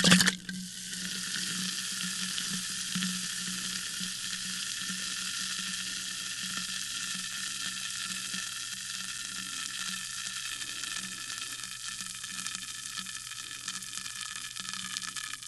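Sparkling water fizzing in a glass: a steady crackle of countless tiny bursting bubbles that eases off slightly toward the end. The pour that set it going stops just at the start.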